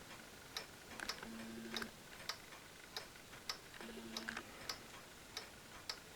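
Mechanical pendulum wall clocks ticking, a little under two ticks a second, with a faint low hum coming and going twice.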